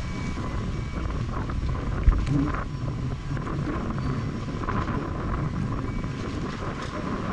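Strong wind buffeting the microphone, with water sloshing and lapping against the side of a small fishing boat. A single sharp thump comes about two seconds in.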